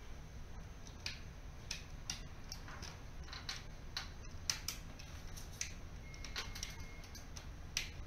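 Irregular small plastic clicks and rattles as a photoelectric smoke detector and its ceiling base are handled and wired in, a few clicks a second with a sharper one about halfway through, over a low steady hum.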